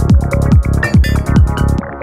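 Live techno with a steady kick drum that drops in pitch on each hit, and hi-hats ticking above it. The beat cuts out near the end.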